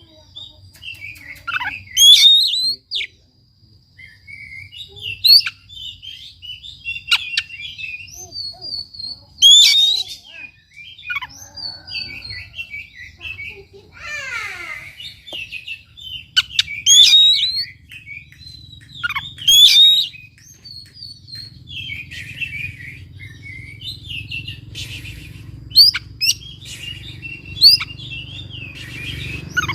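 Oriental magpie-robin (kacer) singing: a varied run of chirps and warbles, broken every few seconds by loud, sharp, high notes. A faint steady high tone runs underneath, and a low hum grows louder near the end.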